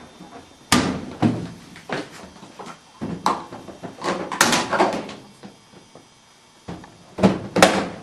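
Several sharp knocks and bangs a second or more apart, with quieter household handling noise between them; two of the loudest come close together near the end.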